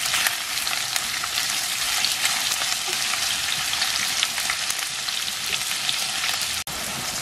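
Sliced onion and garlic cloves sizzling in hot vegetable oil in a stainless steel pan as they sauté: a steady frying hiss with many small crackles. The sound drops out for an instant near the end.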